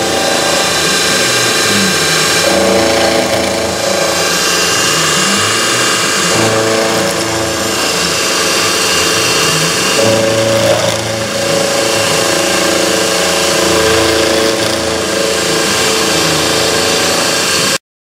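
CNC mill cutting metal with a 12 mm carbide end mill spinning at 1591 RPM under flood coolant: the spindle and cut run steadily, with the tone shifting every few seconds as the tool moves around the profile. The sound drops out briefly near the end.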